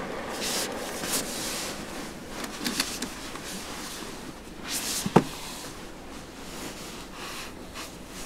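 Handling noise: scattered rustles and light clicks, with one sharper click about five seconds in.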